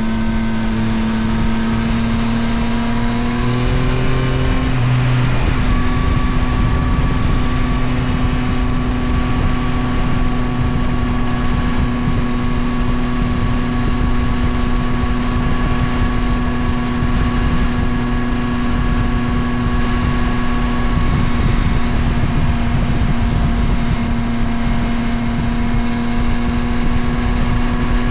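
Yamaha Tracer 9 GT+ motorcycle's 890 cc CP3 inline-three engine running under way, its revs rising slowly over the first few seconds, its tone changing about five seconds in, then holding a steady cruise. Wind and road rumble lie under the engine note.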